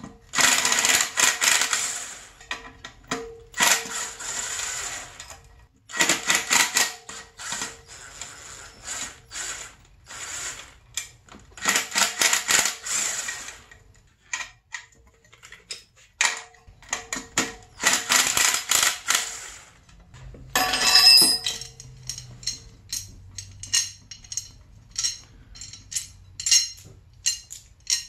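Cordless impact driver hammering the bolts out of a dirt bike's rear sprocket, in repeated bursts of one to two seconds with short pauses between. Near the end come scattered light clicks and clinks of loose metal bolts and nuts being handled.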